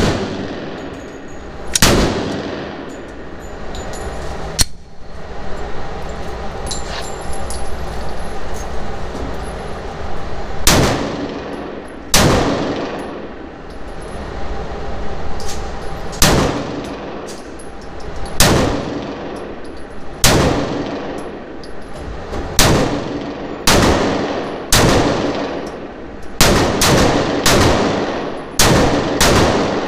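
Glock 19 9mm pistol fired shot after shot in an indoor range, each sharp report followed by a ringing echo. The shots come a few seconds apart at first, then quicker and closer together near the end.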